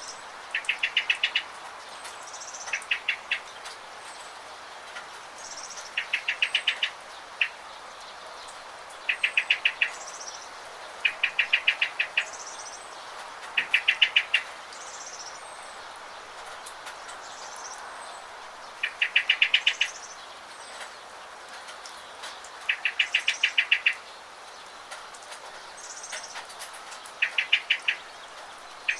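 Songbirds singing over steady rain. One bird repeats a short, rapid trill of about ten notes every few seconds, about nine times, with fainter, higher chirps from other birds between the trills.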